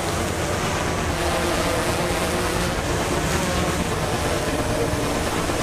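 Multirotor drone hovering, its propellers running with a steady whir.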